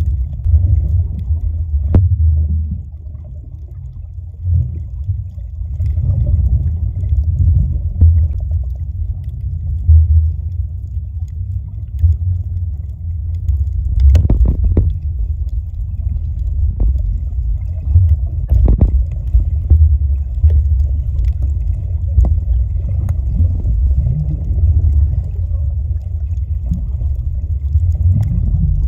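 Muffled underwater rumble picked up by a camera held under the sea, with scattered light clicks and a few sharper knocks.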